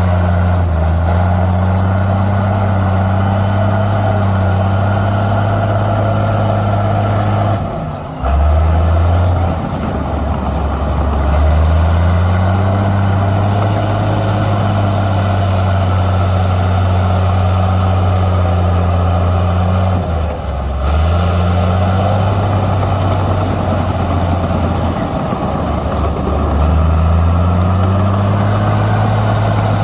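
Heavy diesel engine of earthmoving machinery running steadily. Its pitch drops sharply about 8 seconds in and again briefly around 20 seconds, then climbs back each time as the revs change.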